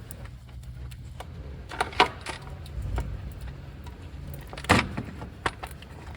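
A few sharp metallic clinks and taps, like hand tools on engine parts, over a steady low hum. The clinks come in a cluster about two seconds in and again near the end.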